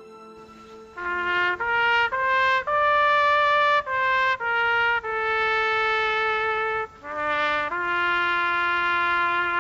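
Solo trumpet playing a slow melody, starting about a second in. It is a string of separate held notes, with two long sustained notes near the middle and at the end.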